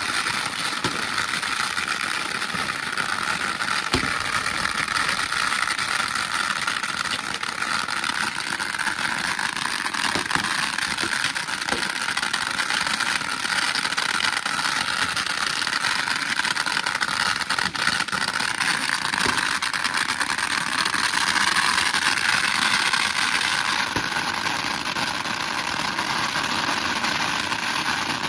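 Thousands of firecrackers going off together in one continuous dense crackle, with a few sharper cracks standing out.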